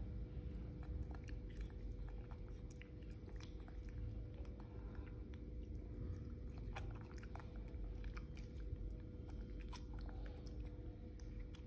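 A small monkey chewing and biting tangerine segments: irregular soft clicks and smacks of eating, scattered throughout.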